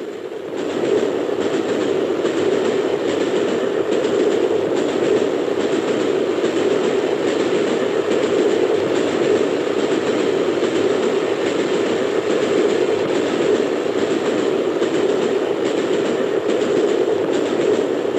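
Steam locomotive running on the line, heard from its footplate: a steady, loud rumble with faint irregular clatter over it.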